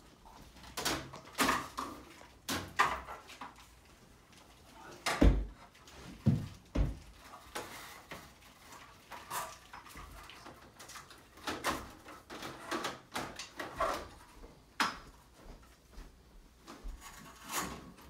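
Irregular knocks, taps and clatter as panels are handled and fitted into a wheeled metal snake rack, with a couple of heavier thumps about five and six seconds in.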